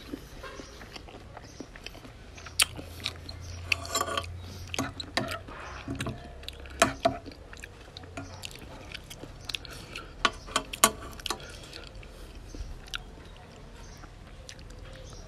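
Close-up chewing and mouth sounds of a person eating raw shrimp in chili sauce, with many scattered sharp clicks and taps.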